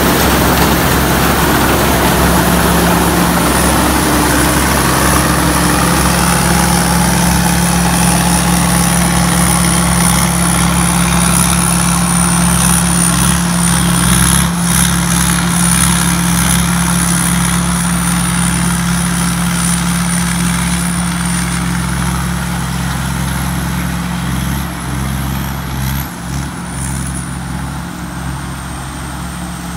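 TAMCO S7000 combine harvester's Isuzu 6HK1 six-cylinder diesel running steadily under load while it harvests corn, a constant low engine hum with a thin high whine over it. It grows quieter in the last few seconds as the machine moves off down the row.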